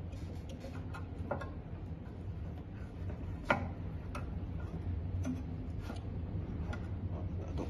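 Scattered small clicks and light knocks of metal parts as a fat-tyre scooter's front wheel is fitted into its fork and the axle end is worked on, with one sharper knock about three and a half seconds in. A steady low hum runs underneath.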